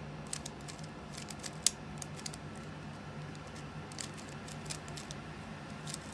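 Rubik's cube being turned by hand: quick runs of light plastic clicks as the layers rotate, in two flurries with a pause between and one sharper snap early on, over a steady low hum.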